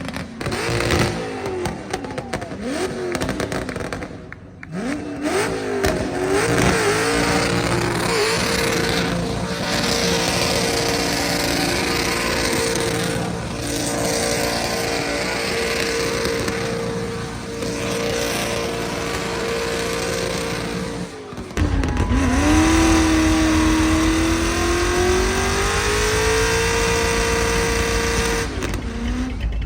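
A drag car's engine revved hard, then held at high rpm through a long burnout, with the spinning rear tyres hissing under it. About two-thirds of the way through, the sound breaks off and a deeper engine revs up in a slow rising sweep.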